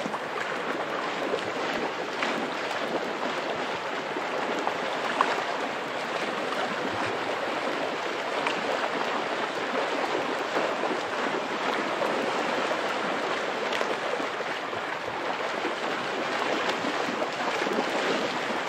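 Fast river water rushing over rocks, a steady wash, with splashing as a dog wades and lunges through the current.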